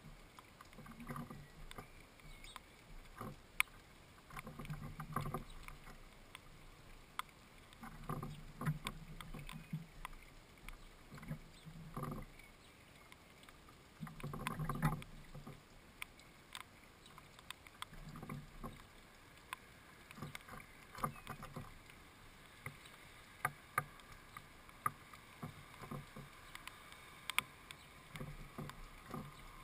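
A small bird pecking at a hanging fat ball and shifting about on a wooden feeder: irregular taps and knocks on the wood, with a few short dull thumping clusters, the loudest about halfway through.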